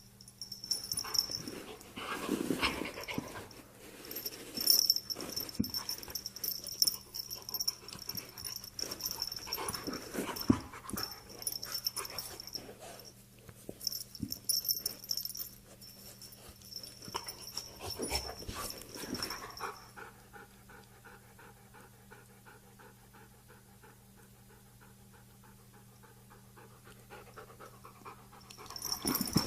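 A dog making breathy sounds in irregular bouts, which stop about two-thirds of the way through.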